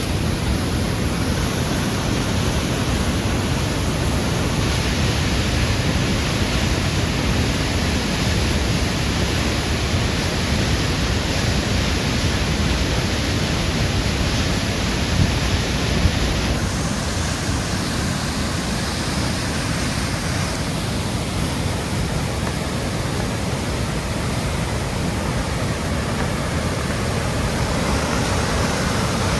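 Waterfall rushing: a steady, loud wash of falling water that gets brighter about five seconds in and duller again after about sixteen seconds.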